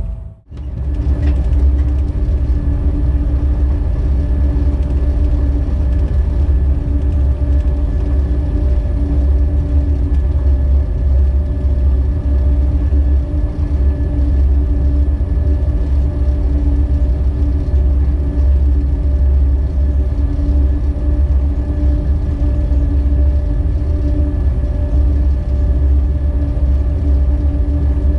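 Electric locomotive running under way, with a heavy steady low rumble and a few steady humming tones over it. A very brief dropout comes right at the start.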